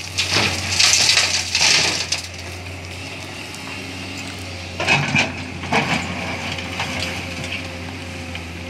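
Excavator bucket dumping sand and gravel into a tipper truck's steel bed, a loud rattling rush for about the first two seconds. After that the excavator's diesel engine runs steadily, with a few sharp knocks and scrapes about five and six seconds in as the bucket digs into the gravel pile.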